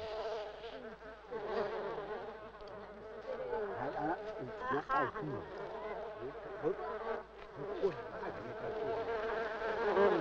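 Flies buzzing over freshly butchered meat: a steady droning hum that wavers slightly in pitch.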